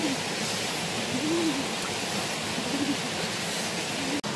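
Steady rushing water with a soft, low hoot-like call that rises and falls in pitch, repeated about every second and a half. The sound cuts out for an instant near the end.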